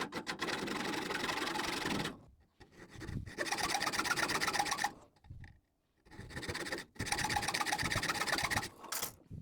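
A steel water pipe being worked by hand with a metal-cutting tool, shaping tabs on it: three stretches of rasping strokes, each about two seconds long, with short breaks between them.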